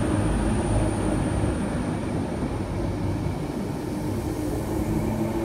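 Class 319 electric multiple unit pulling out of the platform close by, a steady rumble of its wheels and running gear on the rails.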